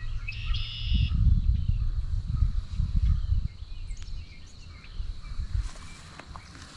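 Outdoor ambience: gusty wind rumbling on the microphone, with a bird singing a short phrase of repeated high notes about half a second in, and a faint steady high insect tone underneath.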